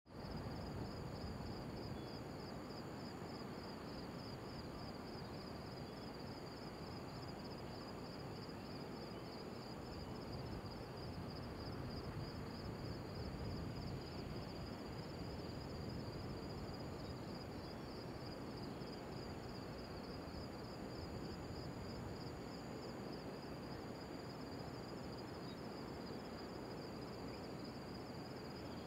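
Steady chorus of insects: a fast, even pulsing high trill with a thinner, higher whine above it, over a low, even background rumble.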